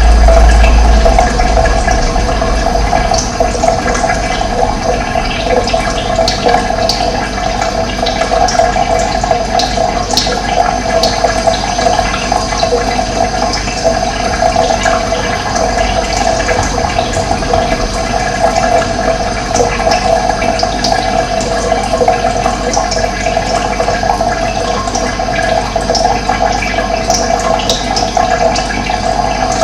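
Running water: a steady, continuous rushing flow.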